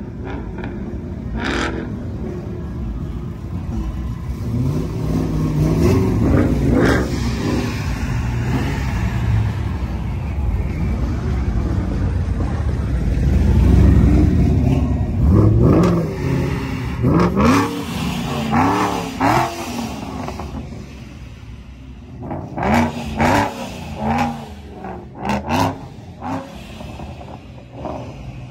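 Several vehicles drive past one after another, their engines revving in rising and falling sweeps over a steady low rumble. The loudest moment, about halfway through, is a big touring motorcycle's engine rumbling as it rolls close by.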